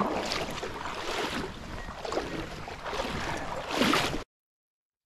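Water sloshing in surges about once a second, then the sound cuts off to total silence about four seconds in.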